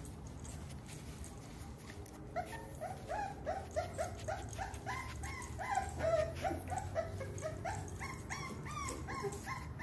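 About four-week-old American bully puppy whining: after a couple of seconds of rustling, a rapid run of short, high, falling cries, about three a second, lasting to the end.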